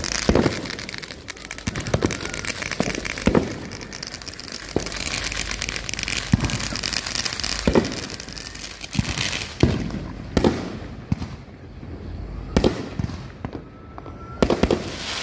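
Consumer fireworks going off: a run of sharp bangs, about one every second or two, with crackling between them.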